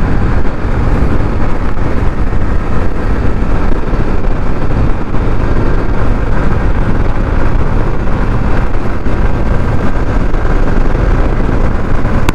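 Honda SP125's single-cylinder 125 cc engine held flat out in fifth gear near its top speed of about 100 km/h, under a steady, loud rush of wind.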